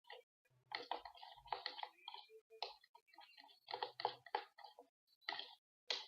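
Spoon stirring glue and liquid laundry detergent together in a bowl, making irregular clicking as the mixture turns into slime.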